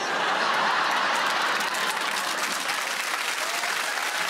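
Studio audience applauding, breaking out suddenly and holding steady as a dense patter of many hands clapping.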